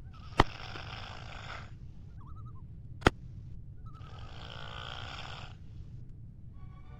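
A person snoring: two long snores, each about a second and a half, a couple of seconds apart, with a faint whistling tone near the end. Two sharp clicks, the loudest sounds, come just after the first snore begins and about three seconds in.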